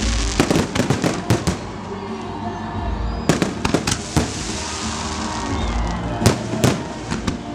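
Fireworks display: rapid volleys of sharp bangs and cracks from bursting shells, coming in three clusters about three seconds apart, over a low rumble.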